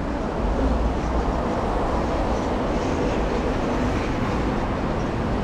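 Steady city street traffic noise, with a low rumble from a passing vehicle early on.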